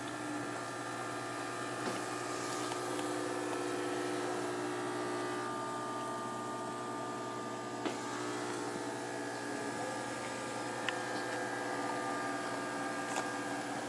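Steady electrical hum made of several steady tones, with a faint tick about eight seconds in and another near eleven seconds.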